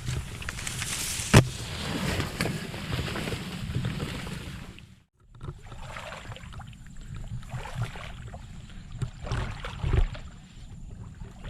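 Small boat being paddled through water: irregular splashes and wooden knocks against the hull, with one sharp knock about a second in and a brief break near the middle.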